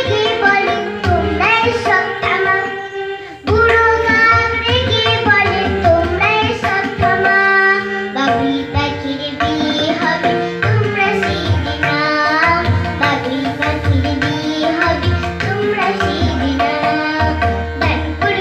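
A young girl singing a Bengali children's rhyme song, accompanied by tabla, harmonium and electronic keyboard, with the music breaking off briefly about three and a half seconds in.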